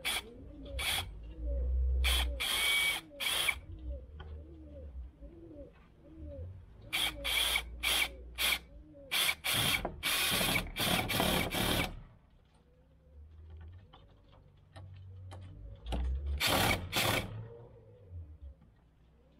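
Worx WU175 20 V cordless drill driver driving screws into wood, run in short bursts with pauses between them, with a longer run about ten seconds in.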